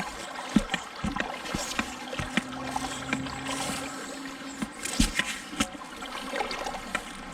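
Shallow river water sloshing and trickling around wading feet, with scattered light knocks and clicks. A steady low hum runs through the middle.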